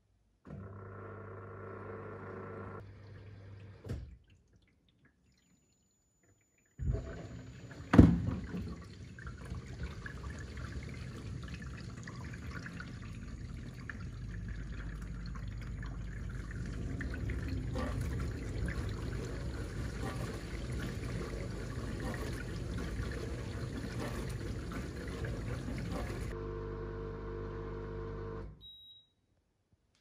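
Beko DIN48534 built-in dishwasher running mid-cycle. A pump hums for a few seconds and stops. After a short pause a sharp click starts water sloshing and spraying inside the closed machine, which runs steadily for about twenty seconds, then ends with a brief hum and stops.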